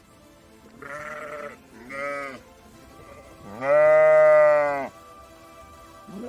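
Sheep bleating: two short calls, then one long, loud bleat about four seconds in.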